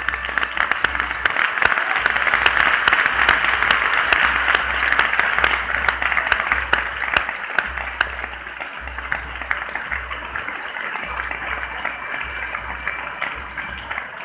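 Audience applauding, a dense patter of many hands that swells over the first few seconds and then slowly thins out.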